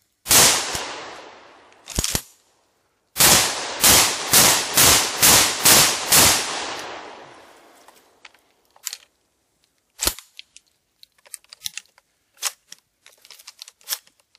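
Mossberg 930 semi-automatic 12-gauge shotgun firing buckshot: one shot, a shorter, quieter bang about two seconds later, then a rapid string of seven shots about half a second apart, each ringing out. After the string, scattered light clicks and rattles as the gun and shells are handled.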